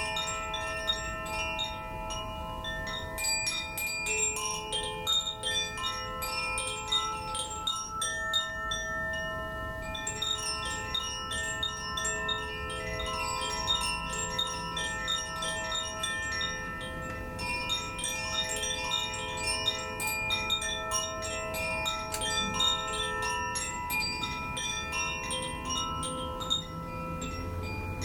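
Koshi chimes, bamboo-bodied wind chimes with tuned metal rods, swirled by hand so the clapper strikes the rods in rapid clusters. Many notes ring on and overlap, with the strikes coming in waves and brief lulls between them.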